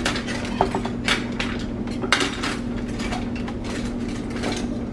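Metal cutlery clinking and rattling in a kitchen drawer as someone hunts for a large spoon: a scattering of irregular short clinks over a steady low hum.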